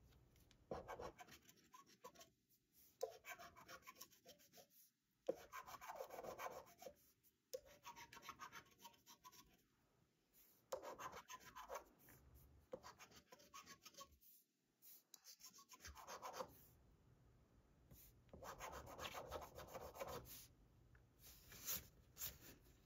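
A coin scratching the coating off a paper scratch-off lottery ticket, in repeated short bouts of rapid rubbing with brief pauses between them.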